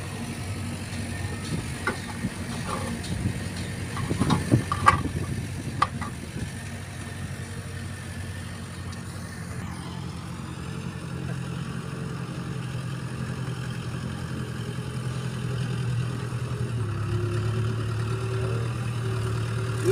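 Diesel engine of a backhoe loader running steadily, with a few sharp knocks in the first seconds. About halfway through it grows louder and deeper as the loader drives closer with a loaded bucket of gravel.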